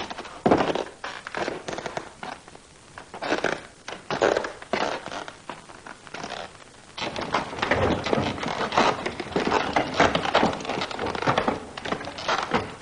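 A rapid, irregular series of knocks, taps and clatters, busier in the second half.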